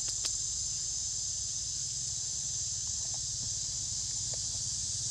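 Steady high-pitched drone of an insect chorus, with a low steady hum underneath and a couple of faint short rustles about three and four seconds in.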